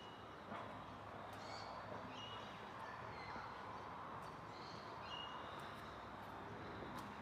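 Faint birdsong: a few short, high chirps and calls from birds in the trees, scattered over a low steady outdoor hum.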